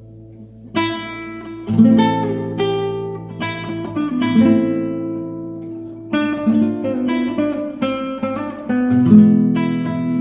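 Guitar played as an instrumental, picking out a melody over chords, each note and chord ringing on after it is struck. It starts a little under a second in after a brief pause.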